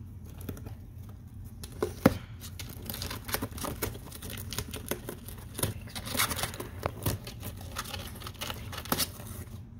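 A young prairie dog rustling in shredded paper bedding and tearing at a cardboard box. Quiet for about two seconds, then a busy run of crinkling, scratching and tearing noises, with a sharp snap as it begins.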